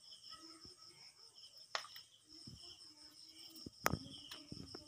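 Crickets chirring steadily in the background, broken by a few sharp clicks and knocks of wooden tongs handling grilled birds on a wire grill, the loudest about four seconds in.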